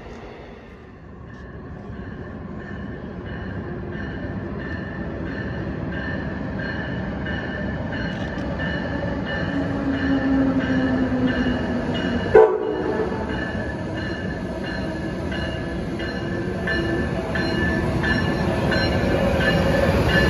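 Amtrak Siemens ACS-64 electric locomotive arriving at the platform, its running sound growing louder, with its bell ringing evenly about once or twice a second. There is one sharp, brief sound about twelve seconds in.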